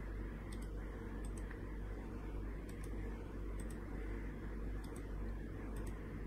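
A handful of faint computer mouse clicks at irregular intervals, some in quick pairs, over a steady low electrical hum.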